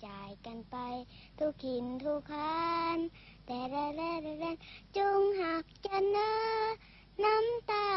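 A young girl singing alone, a slow melody in held notes of up to about a second each, with short breaks between phrases.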